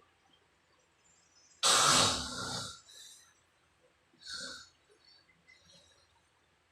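A sleeping person snoring: one loud snore starting suddenly about one and a half seconds in and lasting about a second, then a shorter, softer one about four seconds in.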